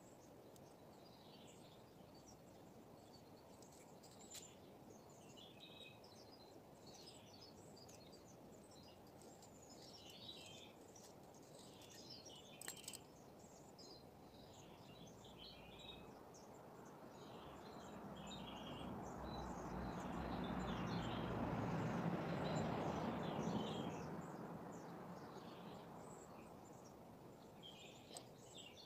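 Faint outdoor ambience with small birds chirping on and off. A low noise swells up and fades away over several seconds, loudest about two-thirds of the way through.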